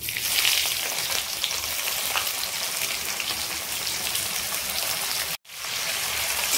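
Onions dropped into hot oil in a pan, starting to sizzle all at once and then frying with a steady hiss. The sound cuts out for a moment about five seconds in.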